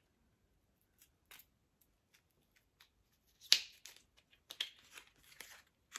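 Small clicks and brief rustles of a liquid lipstick tube and its packaging being handled, with one sharper click about three and a half seconds in.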